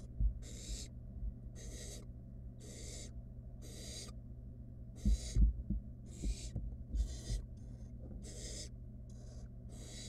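Barn owl nestlings giving raspy hissing 'snore' calls, the begging call of young barn owls. Each hiss lasts about half a second and they repeat roughly once a second. A cluster of low thumps and scuffles from the owlets moving in the wooden nest box comes about midway, over a steady low hum.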